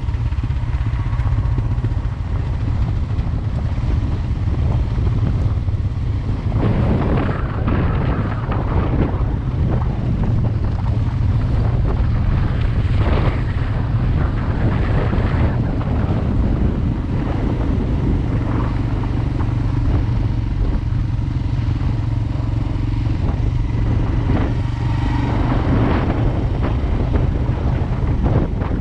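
Motorcycle riding along at a steady pace, its engine drone mixed with wind rushing over the microphone, with a few brief louder gusts of wind or road noise.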